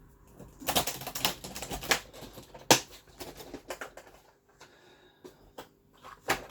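Small hard parts clicking and rattling as they are handled and sorted through, a dense run of clicks for about a second, one sharp louder click near the middle, then scattered lighter clicks.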